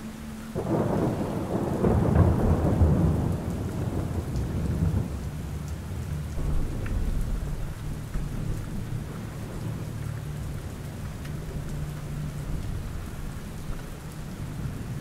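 Steady rain with a thunderclap about half a second in, whose rumble is loudest a couple of seconds later and rolls away over the next few seconds.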